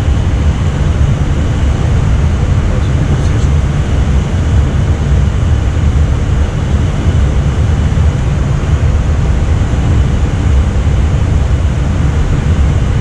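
Steady loud rumble of airflow and engine noise inside an Airbus A320 flight deck, with a few faint steady high tones over it.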